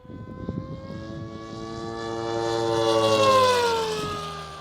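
Electric RC speed helicopter (a custom Comet EVO with an Xnova motor) making a fast pass. The whine of its rotor and motor swells and peaks about three seconds in, then drops in pitch and fades as it goes by.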